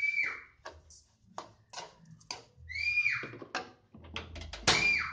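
A bird-like whistled call repeated three times: each a high note held briefly, then dropping sharply. Short clicks and knocks fall between the calls.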